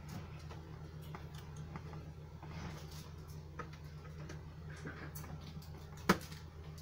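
Small clicks and taps from handling cables and connectors, over a steady low hum; one sharp click stands out about six seconds in.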